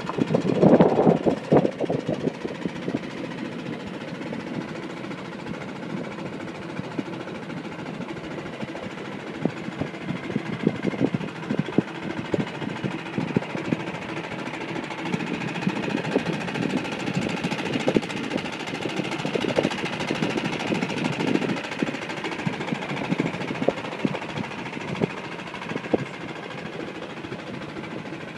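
A narrow wooden river boat's engine running steadily under way, with irregular knocks over the drone that are loudest in the first couple of seconds.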